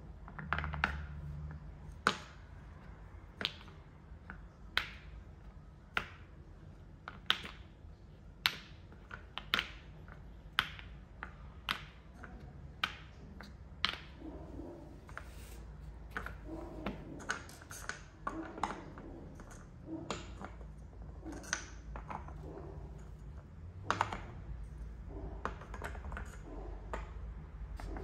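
Solid wooden balls clacking one at a time, about once a second, as they are handled and gathered into a linen bag. About halfway through the sharp clacks give way to softer rustling of the cloth bag and light knocks of wooden pieces.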